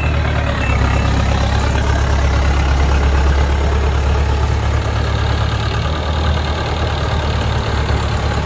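Kubota DC70 rice combine harvester's diesel engine running steadily, a loud deep drone.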